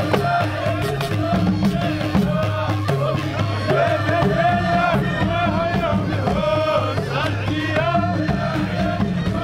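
Traditional folk music: drums beating a steady rhythm under a chanted, wavering melody.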